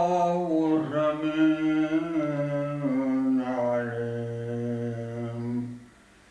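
A man chanting Quranic recitation in long, drawn-out melodic notes, each held for a second or more and stepping down in pitch, breaking off shortly before the end.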